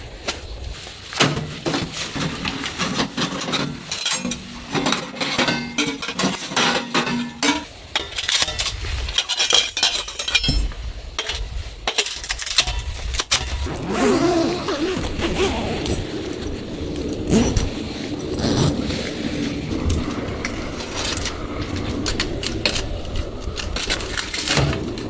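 Repeated knocks, clicks and clinks of things being handled and set down, going on throughout.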